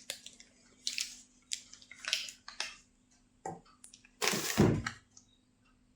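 Packaging being handled: a series of short rustles and small clicks, with a longer, louder rustle about four seconds in.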